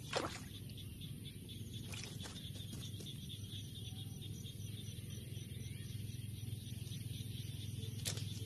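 Evening field ambience of steady insect chirring over a low hum, broken just after the start by one loud, quickly falling whistle-like sweep. A few sharp clicks and rustles follow, the last near the end as the wire trap cage is handled.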